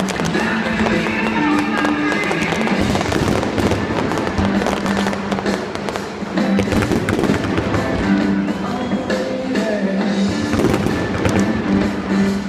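Fireworks display going off: a dense run of bangs and crackles from bursting shells, with music playing over it throughout.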